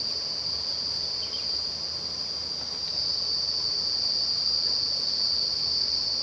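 A steady high-pitched whine runs unbroken over a faint hiss.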